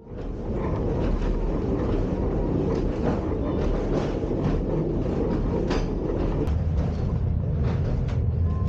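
Funicular railway car running through a rock tunnel: a steady rumble of wheels on the rails with irregular sharp clicks and clatter.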